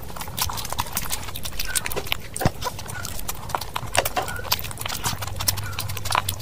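Close-miked eating: wet chewing with a dense run of irregular lip smacks and mouth clicks.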